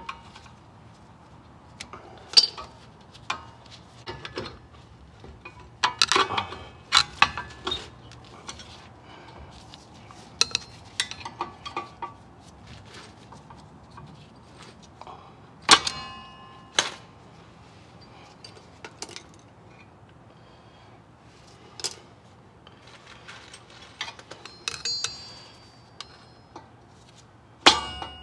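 Steel hand tools (locking pliers, needle-nose pliers, screwdriver) clicking and clinking against the parking brake shoes, spring and backing plate while a stiff return spring is stretched into place. Scattered light clinks with a few louder clangs that ring on briefly, the loudest about 16 seconds in.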